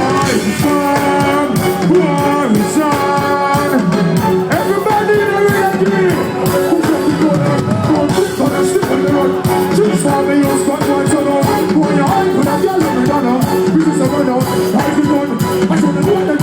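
Live reggae music: a band playing with a male voice singing over it.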